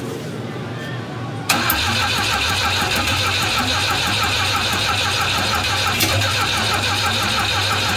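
Starter motor cranking the rebuilt Volvo B20 four-cylinder engine, cutting in about a second and a half in with a steady, even rhythm. The engine turns over without catching, because fuel has not yet reached the SU carburettors.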